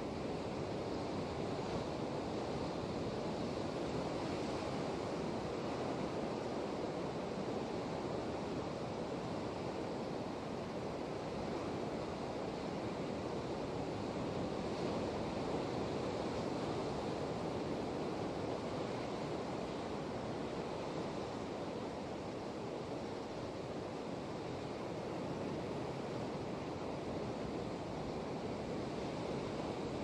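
Ocean surf breaking against the rocks at the foot of a sea cliff, heard from above as a steady wash with gentle swells, mixed with some wind.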